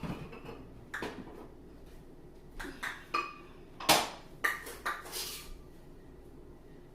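Kitchen clatter: a string of separate knocks and clinks of dishes and utensils being handled, the loudest about four seconds in, with a brief rustle just after.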